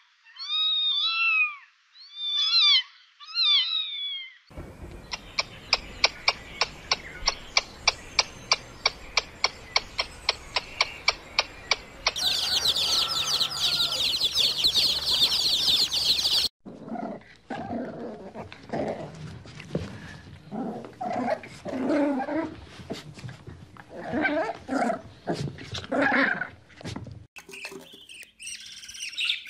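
A run of young animals calling. It opens with four short rising-and-falling kitten mews. Then comes a long series of sharp calls at about three a second, then a crowd of chicks peeping densely for about four seconds, then about ten seconds of irregular, lower yelping calls, and near the end parrot chicks squawking.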